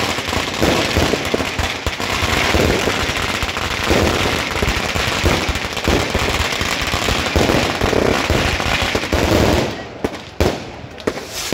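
Aerial fireworks going off in rapid succession: a dense, continuous volley of bangs and crackle, thinning near the end to a few separate bangs.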